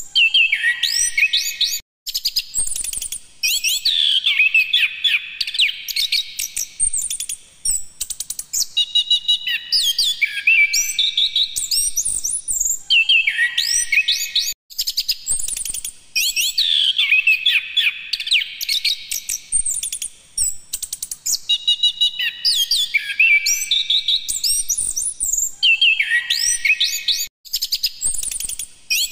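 Chestnut-capped thrush (anis kembang) singing a loud, varied song of rapid high whistles and sweeping trills, delivered in phrases of a few seconds with short breaks between them.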